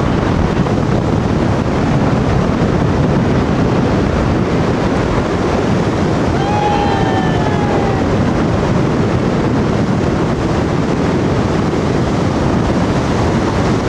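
Steady wind noise buffeting the microphone, mixed with the rush of the fast river in the gorge below. A brief distant call sounds about six and a half seconds in.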